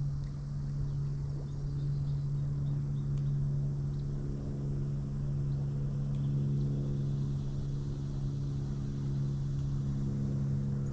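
A steady low drone with overtones, holding one pitch without change throughout.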